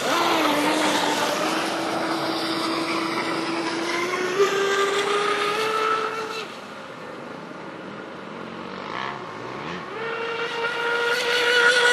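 Brushless electric motor whine of a Genesis Offshore RC twin-hull catamaran running fast on water, with spray hiss. The pitch drops as the boat passes close, then creeps upward as it runs away. The whine fades about six seconds in as the boat gets far off, and swells louder and higher again near the end as it comes back.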